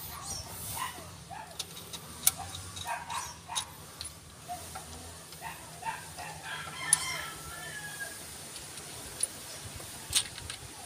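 A rooster crowing partway through, over sharp metallic clicks and taps as camshaft bearing caps and parts on an open cylinder head are handled.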